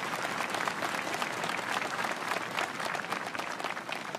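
Crowd applauding, a dense patter of many hands clapping that begins to thin and fade near the end.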